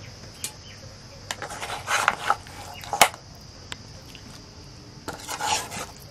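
A metal spoon scrapes and clinks against a steel serving bowl as mutton masala is ladled onto a banana leaf. It comes in a few bursts, with one sharp clink about three seconds in, over a steady high-pitched insect drone.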